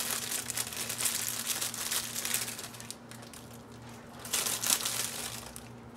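Clear plastic bag of crunchy salad toppings crinkling as it is handled, for about the first three seconds and again briefly near the end.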